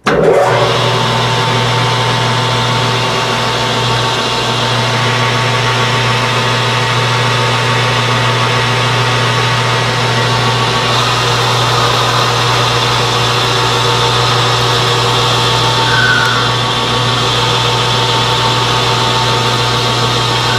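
Metal lathe running steadily while turning an aluminum blank, its tool fed by hand into the work to cut a shoulder: a constant motor hum with the hiss of the cut.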